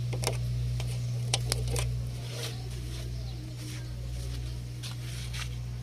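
Several sharp metallic clicks and knocks in the first two seconds as the truck's front grille panel is handled and lifted, then softer handling noise. A steady low hum runs underneath.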